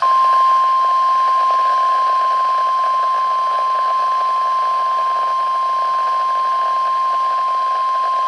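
Weather-radio warning alarm tone: a single steady high tone near 1050 Hz, held unbroken for about eight seconds over faint reception hiss, announcing a severe thunderstorm warning.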